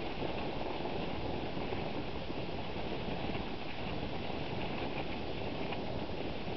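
Dog sled running over snow behind a team of sled dogs: a steady rushing hiss of the runners sliding and the dogs' paws churning through the snow, with faint scattered ticks.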